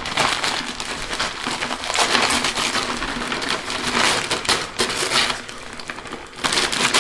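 Christmas wrapping paper being torn and crumpled by hand in a rapid run of rustling tears, easing off briefly about five seconds in before picking up again.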